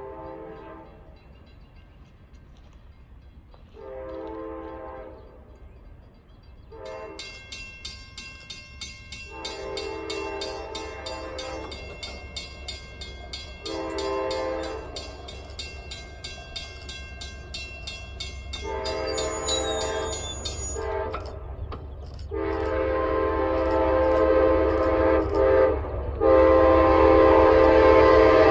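Locomotive air horn sounding a series of chord blasts, some short and some long, over the low rumble of the train. It grows steadily louder as the train approaches, and the last two blasts near the end are the loudest and longest.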